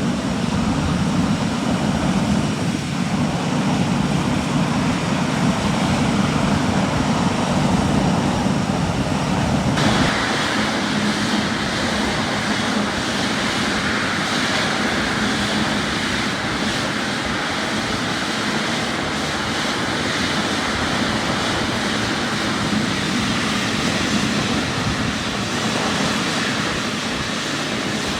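Jet airliner engines running: a steady rush of noise that changes abruptly about ten seconds in.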